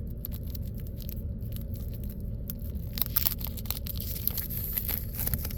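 A wax-paper baseball card pack being torn and crinkled open by hand. The crinkling is sparse at first and turns dense from about three seconds in, over a steady low hum.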